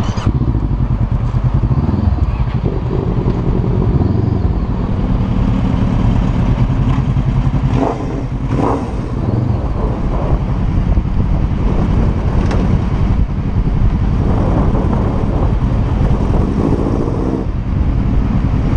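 Honda sport motorcycle engine running at low speed under the rider, its revs rising and falling as the throttle is rolled on and off.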